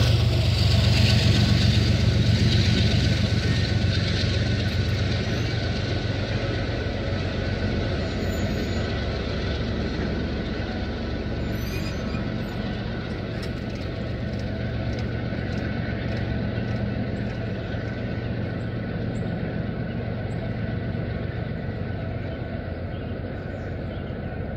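A CSX intermodal freight train's low rumble slowly fading as it moves away past the crossing.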